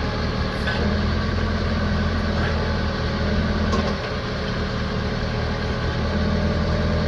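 Branson F Series compact tractor's diesel engine running steadily at slightly raised revs, driving the BH150 backhoe's hydraulics as the backhoe is worked. The engine note dips briefly about four seconds in.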